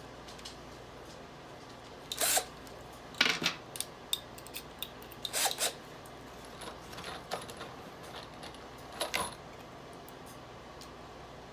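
Scattered clinks and knocks of tools and small metal hardware being handled, about five sharp ones spread through the stretch with a few lighter taps between; no power drill is running.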